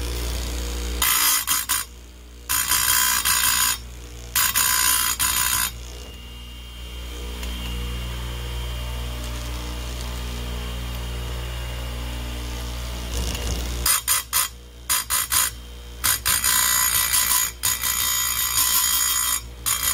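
Stihl USG chain sharpener's motor running with a steady hum while the grinding wheel is lowered onto the chain's cutters, giving short bursts of harsh, high grinding: three early on, then a stretch of motor only, then about four more near the end. This is a dull chainsaw chain being reground tooth by tooth.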